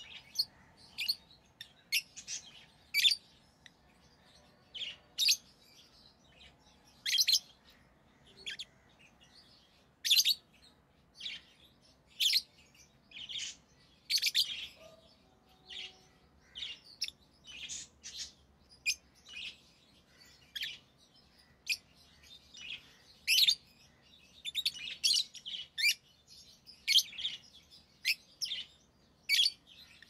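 Rosy-faced lovebirds chirping: short, sharp, high chirps at an irregular pace, sometimes several in quick succession.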